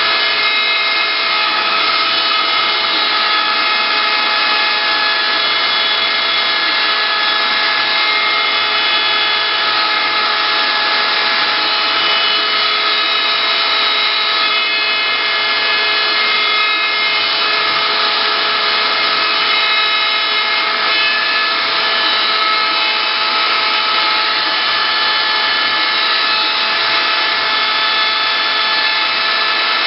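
CNC wood-carving router running steadily: a constant spindle whine of several steady tones over a dense noise.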